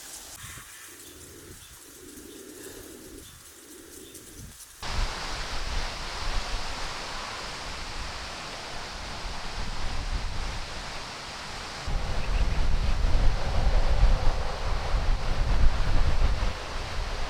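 A dove cooing softly three times, with faint bird chirps. About five seconds in, the sound switches abruptly to a loud, steady rushing noise of weather. From about twelve seconds, wind rumbles heavily on the microphone.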